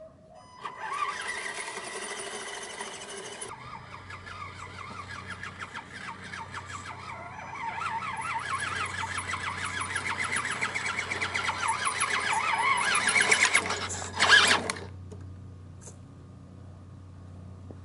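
Electric motor and gear drive of a 4x4 RC rock crawler built on an ECX Barrage chassis, whining high as it drives, with quick rises and falls in pitch as the throttle is worked. It grows louder as the truck comes closer and cuts off suddenly about 15 seconds in when it stops.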